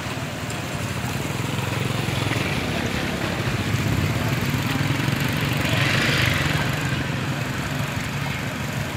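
Small motorbike engines running at low revs close by, a steady low putter, with a brief rush of hissing noise about six seconds in.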